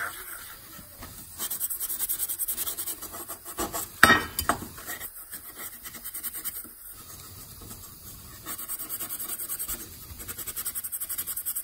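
Steel wool scrubbing old chrome by hand in quick back-and-forth strokes, about four or five a second, in two spells, polishing surface rust off the metal. A sharp clink about four seconds in.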